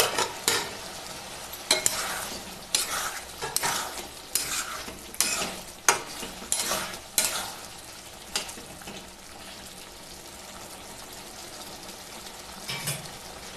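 Metal spoon stirring and scraping through a thick chickpea-and-paneer curry in a metal kadai, with the gravy sizzling in the hot pan. The irregular scrape-and-clack strokes stop about two-thirds of the way through, leaving a steady sizzle, with a couple of light knocks near the end.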